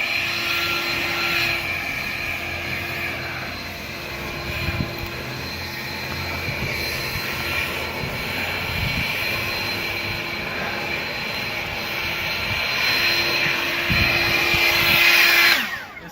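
Cordless handheld jet blower running with a steady whine while blowing snow. It grows louder toward the end, then its pitch falls as it winds down and cuts off.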